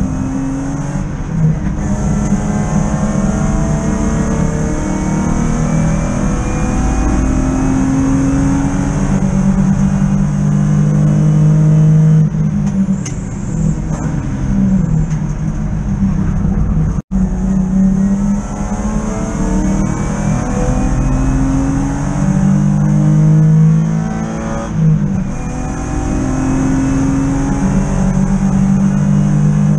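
BMW E36 323i touring car's straight-six engine heard from inside the cabin, running hard at racing pace and revving up through the gears. Twice the revs fall away and climb again, around twelve seconds in and around twenty-three seconds in. The sound cuts out for an instant about seventeen seconds in.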